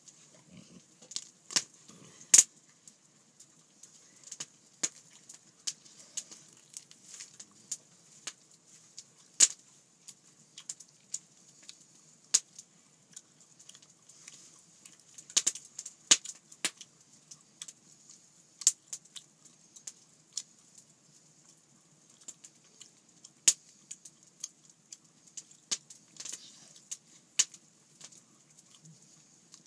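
Wood fire crackling, with irregular sharp pops and snaps over a faint hiss.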